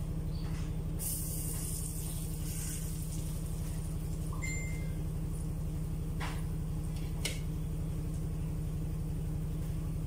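Butter slices dropping into a hot wok and sizzling briefly about a second in, then a few light ticks of a knife against the pan, all over a steady low hum.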